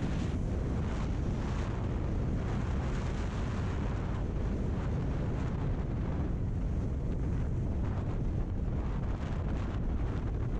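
Wind buffeting the microphone of a motorcycle-mounted camera at road speed, with the bike's running noise underneath.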